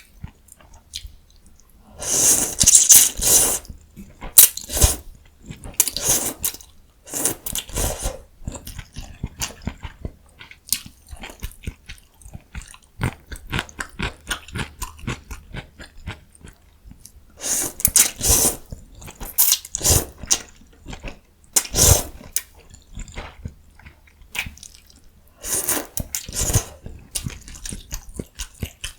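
Close-miked eating sounds: a person chewing and biting food, the mouth sounds of a mukbang of cheese kimbap and egg ramyun. Repeated small wet chewing noises, with louder bursts lasting a second or two at about 2 s, 18 s, 20 s, 22 s and 26 s in.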